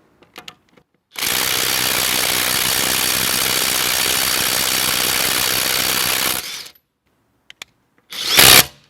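Brushless 20 V cordless impact driver (Parkside Performance PDSSAP 20 Li B2) hammering steadily for about five seconds to loosen a car wheel bolt through a forged 17 mm impact socket. A brief second burst comes near the end.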